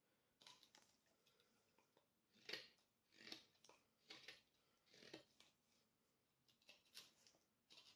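Jakt Kit KNV2 knife blade shaving a stick of dry beech wood: a string of short, faint scraping cuts, roughly one a second, each stroke taking off a curl.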